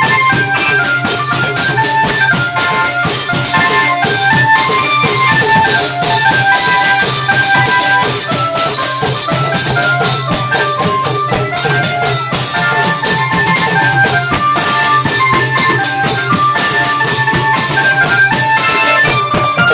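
Thai klong yao long-drum ensemble playing: a fast, steady drum and jingling percussion beat under a running melody of short held notes.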